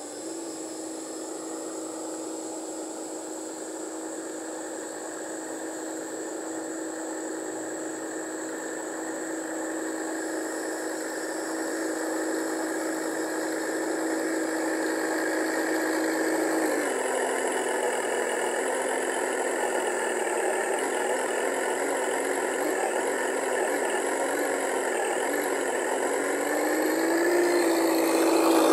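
Speaker of an RC engine-sound module in a Tamiya M1025 Hummer model truck, playing a simulated engine running note. The note grows louder as the truck comes closer, drops in pitch a little past halfway, and rises again near the end.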